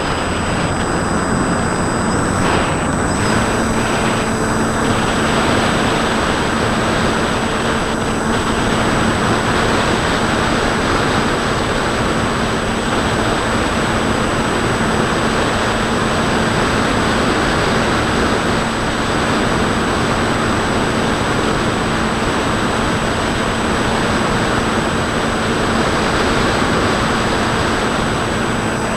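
Bixler 2 RC plane in flight, heard from its onboard camera: heavy wind rush over the microphone with the steady hum of the Turnigy D2826 1400kv brushless motor and 8x5 pusher propeller. The hum rises slightly in pitch about three seconds in.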